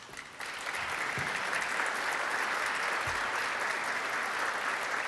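Audience applauding: many hands clapping together, starting a moment in and holding steady.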